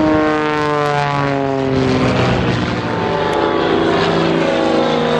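Piston engine and constant-speed propeller of an aerobatic display aircraft in flight, a steady engine tone that slides slowly down in pitch.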